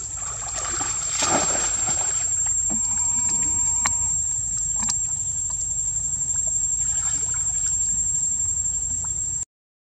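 Water splashing and sloshing as monkeys swim in a stone pool and scramble out onto the ledge, loudest about a second in, with a steady low rumble underneath.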